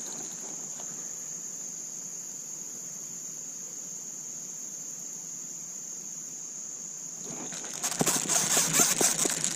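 Steady high-pitched trilling of crickets or other insects. About eight seconds in, a louder rapid rattling of clicks starts over it.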